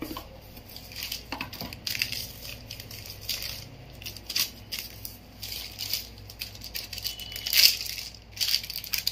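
Crinkly packaging being handled and crumpled, in irregular crackling bursts, loudest about three-quarters of the way through.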